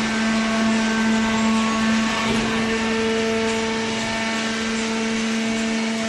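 Horizontal cardboard baler's hydraulic power unit running: an electric motor and pump giving a steady hum with one strong low tone and higher overtones.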